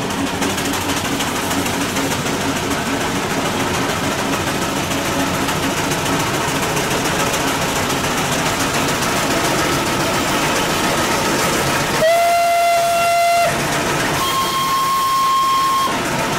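Steam traction engines running along a road with a steady noisy rush, then two steam whistle blasts near the end: a lower-pitched one and, after a short gap, a higher-pitched one held a little longer.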